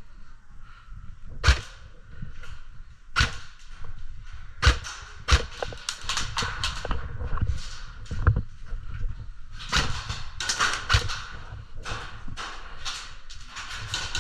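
Airsoft guns firing in close-quarters play: sharp single shots spaced a second or more apart, then denser flurries of rapid shots twice.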